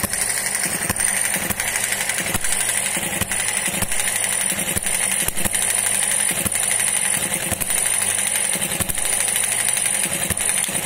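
Model hit-and-miss engine running on its first start: a fast, steady mechanical clatter with louder knocks at uneven intervals and a steady high-pitched whine over it.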